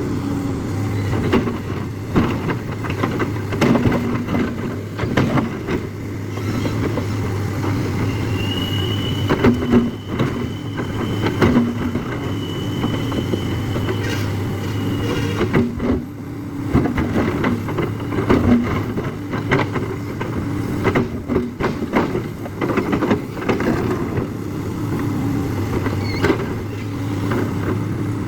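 JCB excavator's diesel engine running steadily, with repeated knocks throughout and a high whine lasting several seconds midway.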